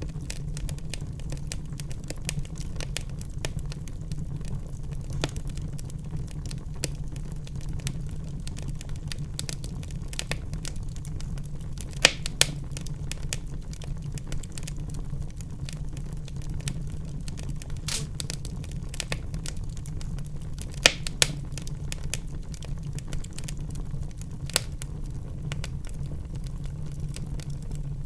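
Wood fire in a fireplace crackling, with a steady low rumble under many small snaps and a few loud pops, two pairs of them about 12 and 21 seconds in.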